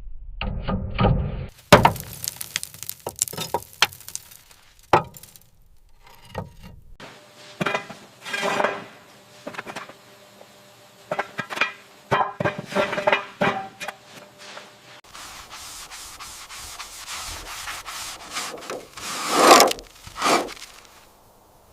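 Hand tools scraping, rubbing and knocking in irregular strokes, with short clinks. A louder drawn-out scrape comes near the end.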